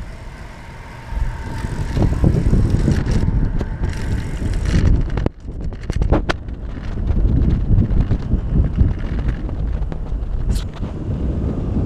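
Wind rumbling and buffeting on the microphone of a camera carried on a moving bicycle, with a few sharp clicks about halfway through and near the end.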